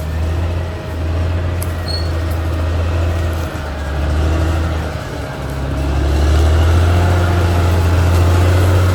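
Caterpillar D6R XL bulldozer's diesel engine running under working load with a deep, steady drone. It dips briefly a few times and grows louder from about six seconds in.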